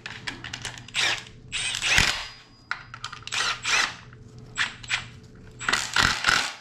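Cordless electric ratchet running in several short bursts as it drives down the idler pulley bolts.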